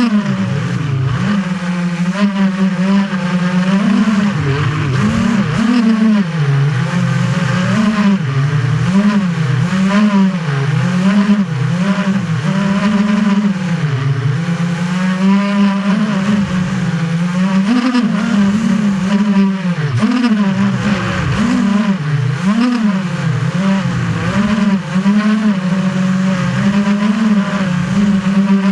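FPV quadcopter's brushless motors and propellers whining, heard close up through the drone's onboard camera. The pitch keeps swinging up and down about once a second as the throttle is worked.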